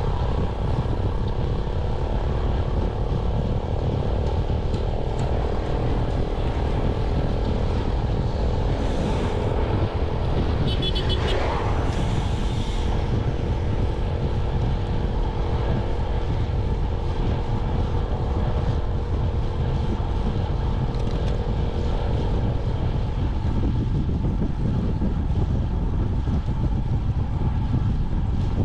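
Heavy wind buffeting and road rumble from riding a motorcycle at speed, with a steady engine drone. A brief louder sound of something passing comes about eleven seconds in, and the engine tone fades out near the end.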